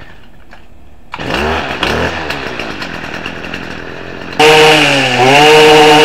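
Stihl two-stroke string trimmer engine, running on gasoline and two-stroke oil, starts about a second in and runs at a low idle, then is throttled up to a loud, steady high speed about four and a half seconds in, its pitch dipping briefly before holding.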